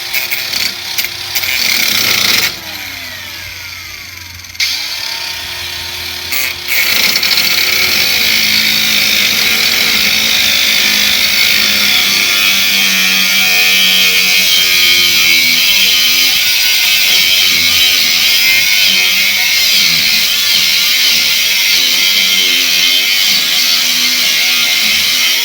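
Hychika 20 V cordless 4 1/2 inch angle grinder with a cut-off wheel cutting through 1/4 inch steel angle iron. It gives a few short bursts and a quieter spell in the first seconds, then about twenty seconds of continuous loud abrasive cutting that stops right at the end.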